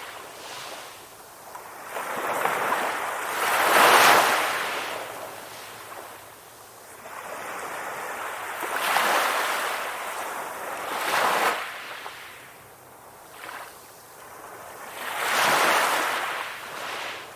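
Ocean waves crashing, each breaker rising to a rushing surge and then draining away, about every five to six seconds. The loudest comes about four seconds in.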